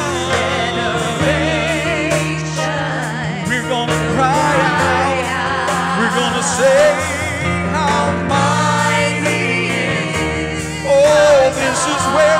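A church worship team, a mixed group of singers, sings a gospel praise song with band accompaniment. The voices carry vibrato over sustained bass notes and swell louder near the end.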